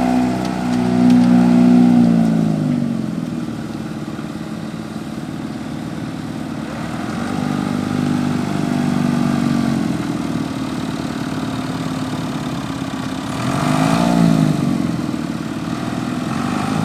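Marshall 602 tractor's diesel engine dropping from high revs to idle in the first couple of seconds, then running steadily, revved up and back down twice: a slow rise and fall in the middle and a short blip near the end.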